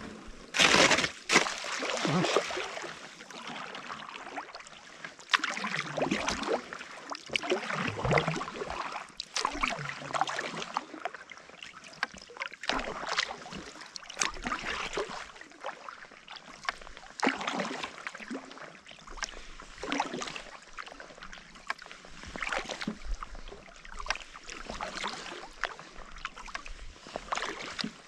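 Kayak paddle strokes in calm sea water: the blade dipping in and pulling through, about one splash every second or two, each followed by a trickle of drips.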